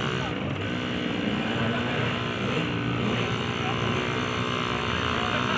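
Small off-road motorcycle engine running steadily under load as the bike climbs a steep, rocky hill.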